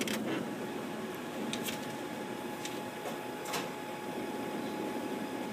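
HP Color LaserJet CM3530fs MFP running through its startup initialisation: a steady mechanical hum with a thin steady tone, with several faint clicks in the middle.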